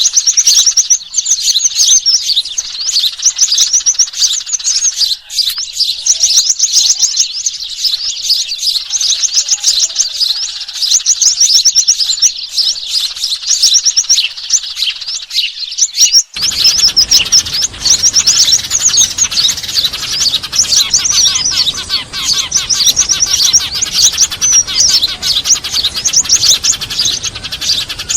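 Dense, busy chirping of a flock of small birds, tree sparrows and other small birds, calling in rapid overlapping bursts: an excited bird-lure recording made to draw small birds in. About 16 s in the recording changes abruptly, with a steady hiss underneath from then on.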